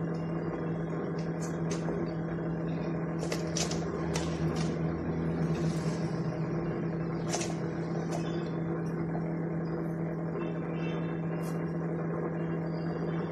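A steady low hum, with a few light clicks and taps as a paintbrush is worked in a plastic tub of glue.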